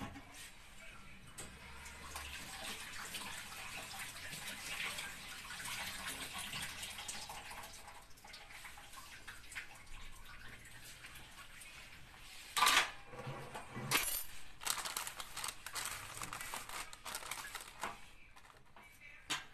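Water running steadily for several seconds, then a few sharp clatters of kitchenware about two-thirds of the way through, the first of them the loudest.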